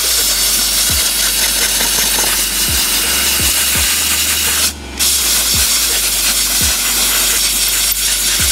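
Compressed air hissing hard from a compressor blow-gun nozzle, blasting dirt and cleaning fluid off the outside of a Nibbi PE24 carburetor; the air cuts off briefly about halfway through.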